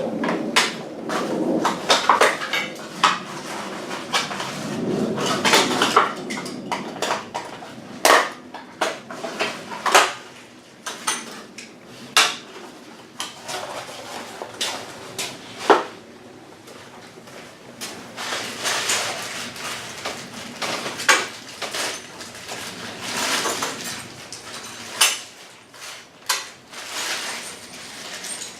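Parts being unpacked from a box by hand: irregular clicks and knocks of hard parts set down and against each other, with rustling of packaging in between.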